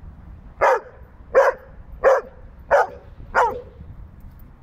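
A dog barking five times in a steady run, about one and a half barks a second, during play.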